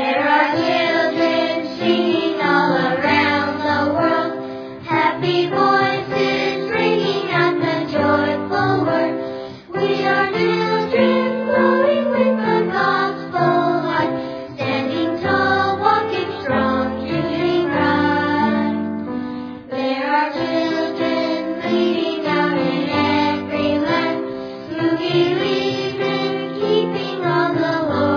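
Background music: a song sung by a choir of voices over instrumental accompaniment.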